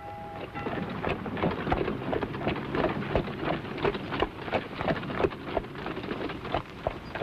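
Clatter of a horse-drawn cart on the move: hooves and wooden wheels knocking in a quick, uneven run of many short knocks.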